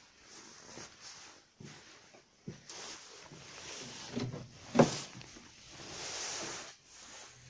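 A Toyota Camry Gracia's door latch clicks sharply once as the door is opened, about five seconds in, with soft knocks and rustling before it.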